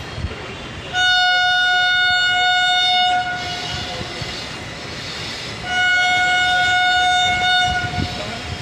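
Horn of an approaching Indian Railways electric locomotive: two long, steady blasts of about two seconds each, a couple of seconds apart.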